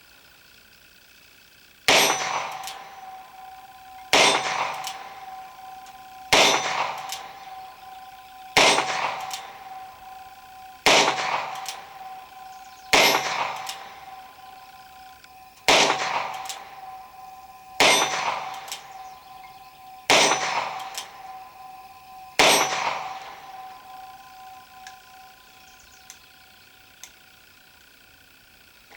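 Cimarron Model P Jr single-action .22 LR revolver fired ten times at a slow, even pace, about one shot every two seconds, emptying its 10-shot cylinder. Each shot is followed by a long, clear metallic ring.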